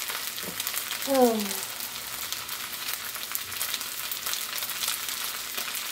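Fried rice frying in a pan: a steady sizzling hiss with fine crackles. A short tone falling in pitch sounds about a second in.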